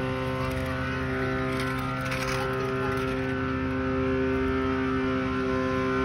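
Engine of construction machinery idling steadily, a constant hum that holds one pitch throughout.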